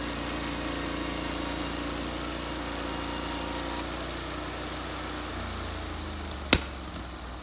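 Norwood HD36 band sawmill's engine running steadily. About four seconds in a high hiss drops away, a little later the engine note shifts lower, and a single sharp clank comes near the end.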